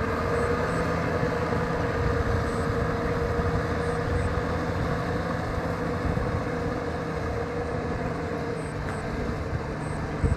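Kubota M6040 SU tractor's diesel engine running steadily under load while levelling a flooded rice field, fading slightly as it moves away.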